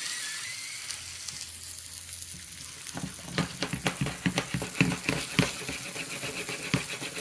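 Slices of Spam frying in a pan: a steady sizzle, with irregular crackling pops from about three seconds in.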